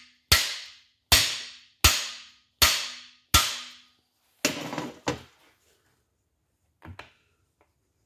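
Hammer blows on a steel cam bearing driver mandrel, driving a cam bearing into the cam tunnel of a Pontiac 400 cast-iron block: five sharp ringing strikes about three-quarters of a second apart, then a longer rougher clatter about four and a half seconds in and a light double knock near the end.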